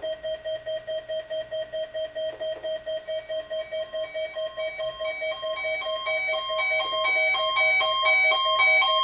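Weather alert radio receivers sounding their alarm for the weekly NOAA Weather Radio test. A steady mid-pitched beep repeats about three times a second. About three seconds in, a second, higher multi-tone beeping joins it and grows louder.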